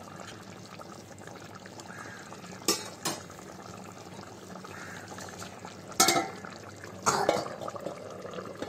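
Chicken and potato curry simmering in a metal kadai with a steady low bubbling, while a spatula clicks against the pan twice around three seconds in. About six seconds in a stainless steel lid strikes the pan with a ringing clang, followed about a second later by a longer clatter as the lid is handled.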